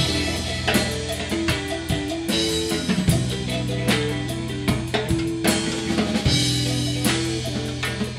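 Live rock band playing: a drum kit hitting steadily under electric guitars, over long held low bass notes.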